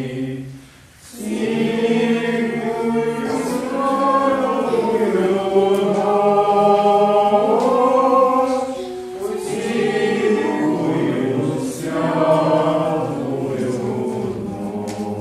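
Choir of mixed voices singing a Christmas carol (kalada) in long held phrases. There is a short break for breath about a second in, and the singing fades near the end.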